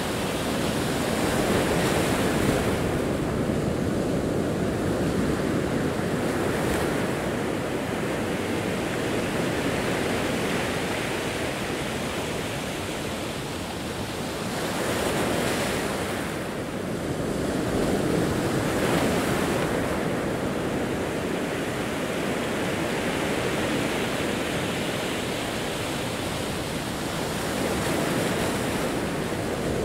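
Ocean waves breaking and washing over a rocky, pebbly shore. A steady surf wash swells louder several times, about two, fifteen and nineteen seconds in and again near the end.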